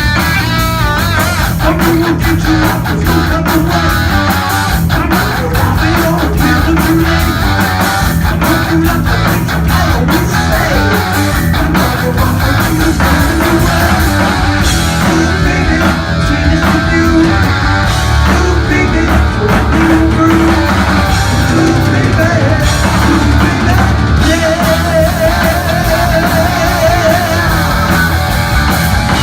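Heavy metal band playing live: distorted electric guitars over bass and drums, loud and continuous.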